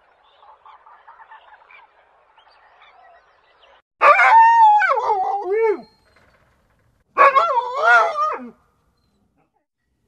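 A dog howling: two long, wavering calls that slide down in pitch, the first about four seconds in and lasting about two seconds, the second shorter, about three seconds later.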